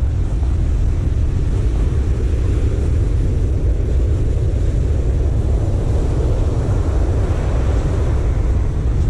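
Wind buffeting the microphone in a steady low rumble, over the wash of breaking surf.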